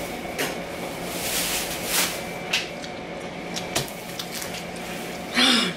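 Wet chewing and smacking of an oversized mouthful of gum, with scattered short clicks and rustles. Near the end comes a brief closed-mouth hum that falls in pitch.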